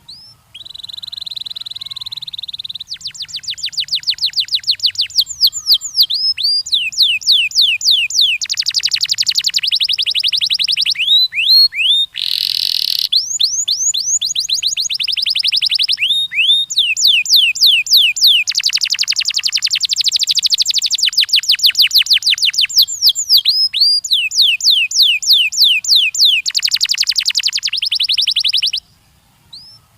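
Domestic canary singing a long continuous song: rapid trills of repeated notes alternating with phrases of quick downward-sweeping whistles, the phrase type changing every second or two. A short harsh raspy note about twelve seconds in, and a brief pause near the end before the song resumes.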